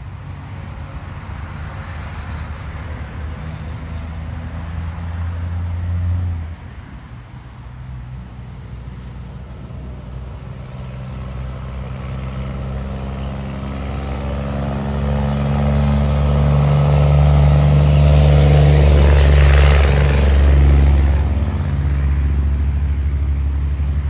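Cars passing on a nearby road: engine hum and tyre noise. The first car cuts off suddenly about six seconds in. A louder one then builds up, is loudest a few seconds before the end, and eases off.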